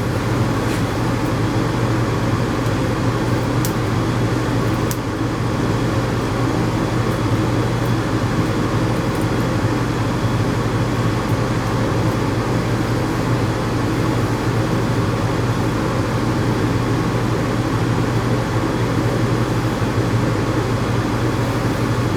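Electric dog-grooming clippers running steadily with a low, even hum, with a couple of faint clicks a few seconds in.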